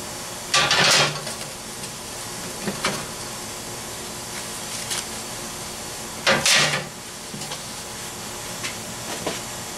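Plastic wrapping rustling and crinkling as it is pulled off a metal grill pan, in two loud bursts about half a second in and about six seconds in. Light clicks of the flat steel grill parts being handled in between, over a steady background hiss.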